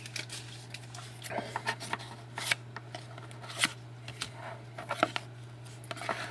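Hockey trading cards being slid and flipped through by hand: soft scattered rustles and light clicks of card stock against card stock.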